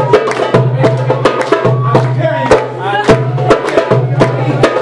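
Dabke music with a steady drum beat, about two to three strikes a second, under a wavering melody line, loud throughout.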